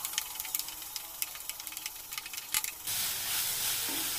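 Onions and ginger-garlic paste sizzling in oil in a stainless steel kadai while a steel spoon stirs and scrapes them, with many light clicks of the spoon against the pan. About three seconds in, the clicks stop and the sizzle becomes louder and steadier.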